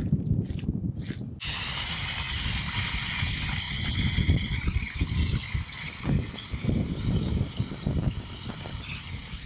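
Water from a garden hose hissing into a plastic one-gallon pump-sprayer jug. It starts suddenly about a second and a half in, runs steadily, and cuts off near the end.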